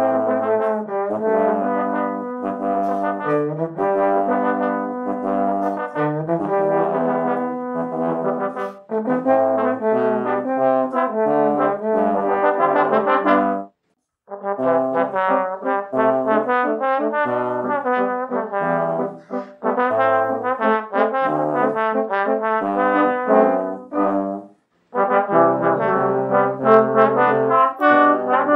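Trombone quartet of three tenor trombones and a bass trombone playing an arrangement of a pop ballad in four-part harmony, with the bass trombone's low notes underneath. The playing breaks off briefly twice, about halfway through and near the end.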